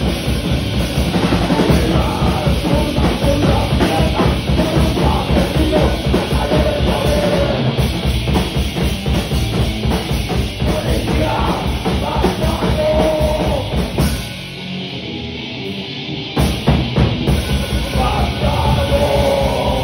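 Live rock band playing loud: a drum kit pounding a fast, driving beat under bass guitar and electric guitar. About fourteen seconds in, the drums and bass drop out for roughly two seconds, leaving a thinner sound, before the full band comes back in.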